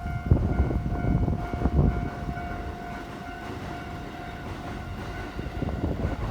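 A Keikyu electric train running over the level crossing, its wheels rumbling and thumping, while the crossing's warning alarm rings with a steady electronic tone that grows fainter after about halfway.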